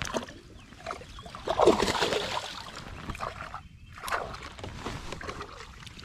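Water sloshing and splashing around a small fishing boat, with irregular handling knocks, loudest about two seconds in.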